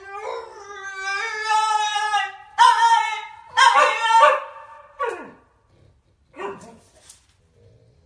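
French bulldog howling: one long drawn-out howl, then a few shorter, louder yowls that die away over the next few seconds.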